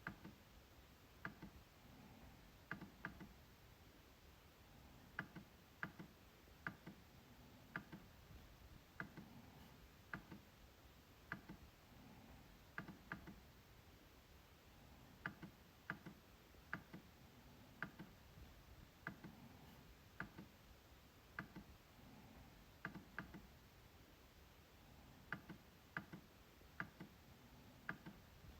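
MacBook trackpad being clicked: short, sharp clicks at irregular intervals, often in quick pairs, over a faint steady hiss.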